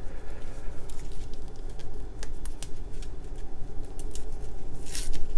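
Dry, papery onion skin being peeled off with gloved fingers: light crackling and rustling with scattered small clicks, and a louder tearing rasp about five seconds in. A steady low hum runs underneath.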